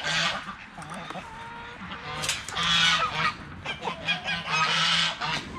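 Domestic geese honking repeatedly, loudest about two seconds in and again near the end.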